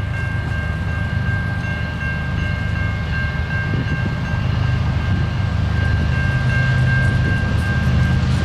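Approaching Canadian National oil train led by GE diesel locomotives: the lead unit's air horn sounds a held multi-note chord with short breaks, over the low rumble of the engines, which grows slowly louder.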